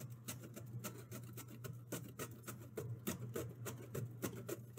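Serrated knife slicing through a firm green plantain over a bowl: quick, irregular clicks and scrapes as the blade cuts and the slices drop into the bowl. A faint steady low hum runs underneath.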